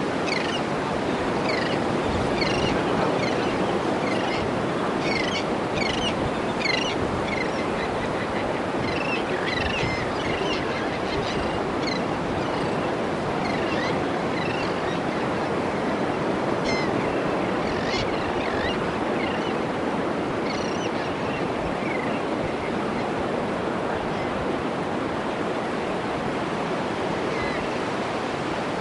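Steady surf of small waves breaking on a sandy beach. Over it come many short, high bird chirps and calls, frequent for most of the time and thinning out near the end.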